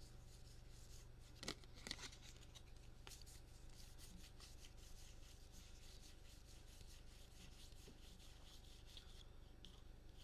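Faint handling of trading cards: soft rubbing and sliding as cards are flipped through a pack, with two light clicks about a second and a half and two seconds in, over a low steady hum.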